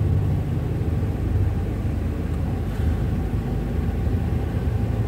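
Steady low rumble of an ambulance's engine and tyres on a paved road, heard from inside the cab while driving.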